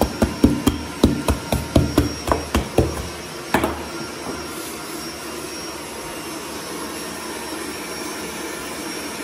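An electric kitchen appliance's motor running steadily. Over the first three seconds there is a quick run of sharp knocks, about four a second, and one more knock a little later.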